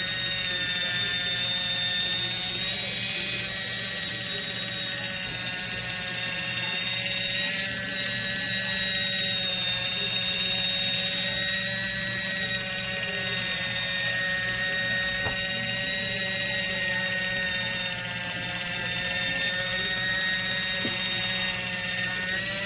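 Kitchen Mama One Touch battery-operated can opener running on a can, its small electric motor giving a steady high whine at an almost constant pitch as it cuts around the lid.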